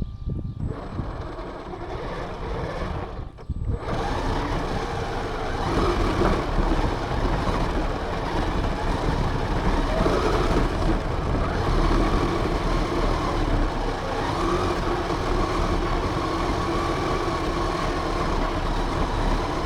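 RC car driving, heard from a camera mounted on it: the motor whines and rises and falls in pitch with speed over a steady rumble from the tyres and chassis, with a brief drop-off about three and a half seconds in.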